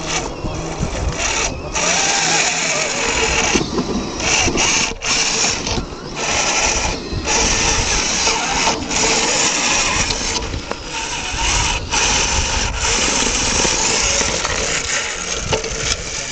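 Electric drive motor and gearbox of a radio-controlled scale Tatra T813 truck whirring as it crawls over rocks. The motor stops and starts again several times with brief pauses as the throttle is worked.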